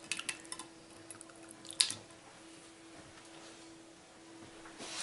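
Cooked ground-meat mixture dropping softly out of a cup into a glass baking dish, with a few light taps and one sharper clink about two seconds in. A faint steady hum runs underneath.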